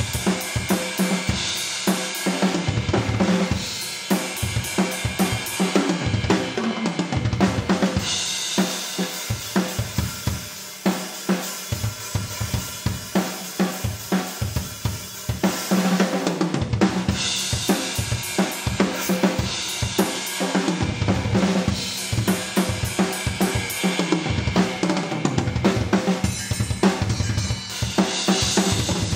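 Acoustic drum kit played continuously: kick drum, snare and toms struck in quick succession, with Saluda cymbals and hi-hat crashing over them. Stretches of heavy cymbal wash alternate with stretches carried mostly by the drums.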